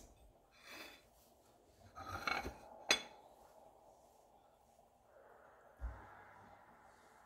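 Quiet handling of a small kitchen grinder and dried crawfish: soft rustling, one sharp click about three seconds in, and a low thump near six seconds, after which a faint steady noise sets in.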